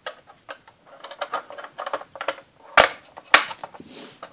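Hard plastic toy parts clicking and rattling as the roof of a Playmobil pickup truck is fitted on by hand, with two louder sharp snaps a little over half a second apart about three quarters of the way through.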